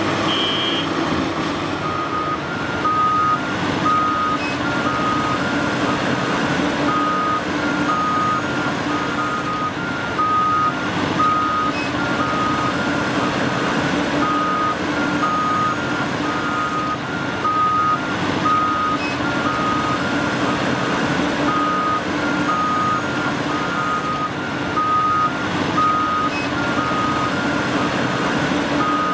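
Heavy diesel earthmoving equipment running steadily, with a backup alarm beeping over and over at two slightly different pitches, as from two alarms sounding together.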